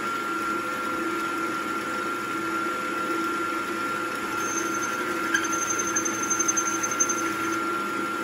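Benchtop mill-drill spindle running with a steady hum. From about halfway through, an 11/16-inch drill bit starts cutting into the cast aluminium wheel's lug hole, adding a thin high whine and irregular ticks.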